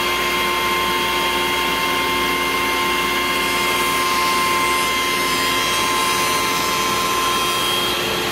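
Benchtop jointer running with a steady high motor whine, its cutterhead planing the edge of a glued-up American chestnut panel fed along the fence.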